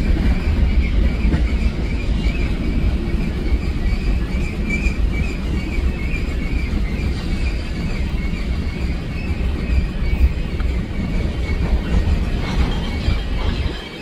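Freight train rolling through a rail yard: a steady low rumble with a faint, thin high squeal running through it.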